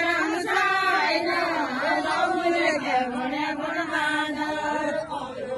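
A group of women singing a Deuda folk song together in a slow, chant-like melody with long drawn-out notes.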